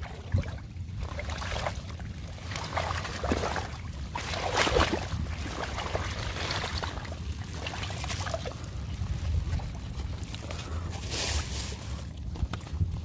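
Irregular rustling and light splashing as a mat of water hyacinth is pushed through at the water's edge, over a steady low rumble.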